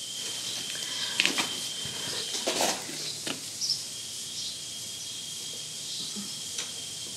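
Background ambience: a steady high-pitched tone with a few short bird chirps. Light clicks and rustles of plumbing parts being handled come between about one and three and a half seconds in.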